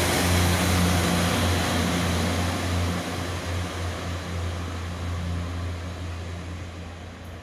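Pacer diesel railbus pulling away, its underfloor diesel engines running with a low steady hum that fades as the train recedes.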